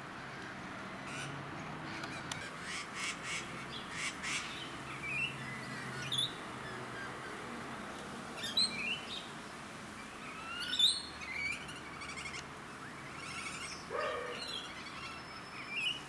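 Rainbow lorikeets calling: a scattered series of short, shrill screeches and chattering notes, loudest in a cluster about two-thirds of the way through.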